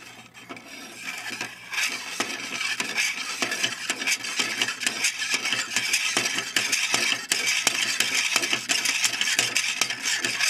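Hand-turned 3D-printed plastic double-dwell Scotch yoke mechanism rattling: its pin and slider clatter and click rapidly against the wheel and guides, building up about two seconds in as it is spun fast.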